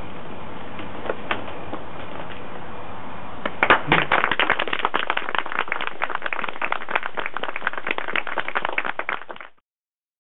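Audience applause: many hands clapping at once, starting suddenly about three and a half seconds in and fading out near the end, over a steady background hiss.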